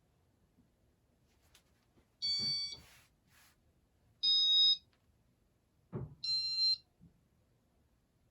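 Three electronic beeps from the 1995 Casablanca Panama ceiling fan's control, each about half a second long and about two seconds apart, as the fan steps through its demo mode. A soft knock comes just before the third beep.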